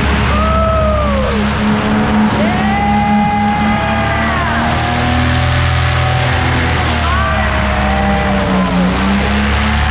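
Paramotor engine and propeller running steadily at flying power, with wind rushing past the pilot's microphone. Over it, music plays with sliding notes that rise and fall.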